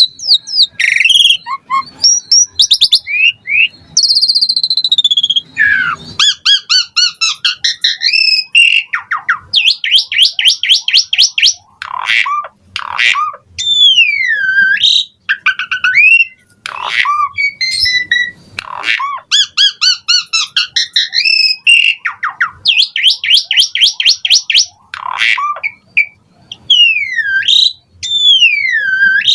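Asian pied starling (jalak suren) singing a loud, varied song packed with mimicked phrases: clear whistles that glide down and back up, fast runs of rapidly repeated notes, and short harsh squawks, with hardly a pause.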